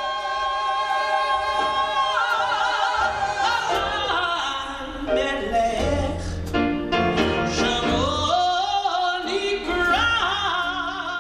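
Live gospel singing: a male singer belts into the microphone, holding one long note near the start and then running through ornamented phrases with wide vibrato, over piano and upright bass.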